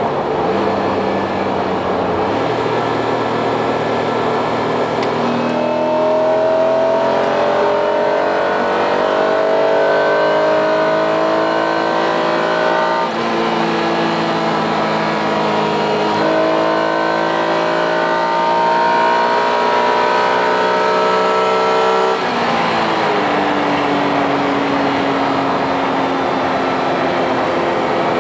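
Honda NSX V6 engine with an aftermarket exhaust, heard inside the cabin while the car accelerates. The engine note climbs steadily in pitch, drops suddenly at upshifts about halfway through and again about three quarters through, then settles to a steadier note.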